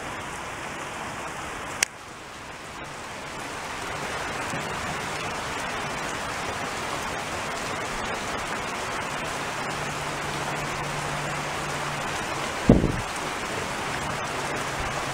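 Steady rain falling, a hiss that swells over the first few seconds and then holds even. A single short thump cuts through about thirteen seconds in.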